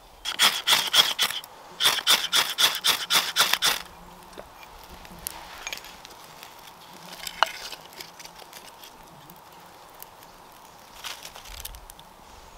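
Small hand saw cutting kindling wood in two quick runs of rasping strokes, about five a second, in the first four seconds. This is followed by quieter handling of sticks with one sharp click.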